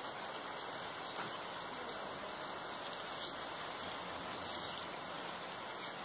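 Steady rain falling on leaves and foliage, an even hiss. Five short high-pitched blips stand out over it, the loudest about three seconds in.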